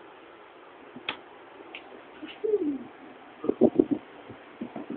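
Pigeon cooing: one low falling note about two and a half seconds in, then a quick run of short low coos a second later.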